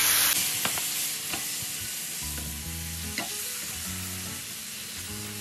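Broth hitting a hot skillet of butter-and-flour roux hisses loudly at first, then settles into a steady sizzle as the mixture is stirred with a silicone spatula, with a few light scrapes against the pan.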